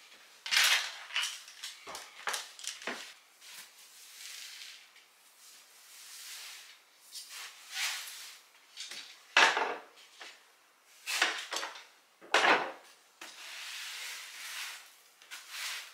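Broom sweeping a hard floor: irregular brushing swishes, with a few sharper, louder strokes scattered through.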